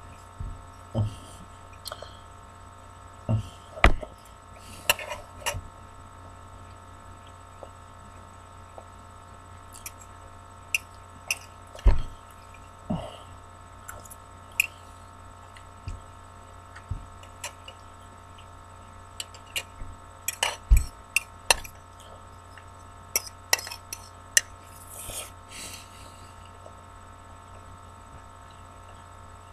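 Someone eating mac and cheese from a bowl: scattered clicks, taps and chewing and handling noises every second or two, over a steady electrical hum.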